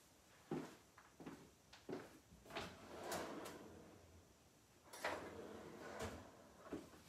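Faint, irregular knocks and scrapes, about a half-dozen short ones spread over several seconds, with longer scraping stretches around three seconds in and again around five to six seconds in.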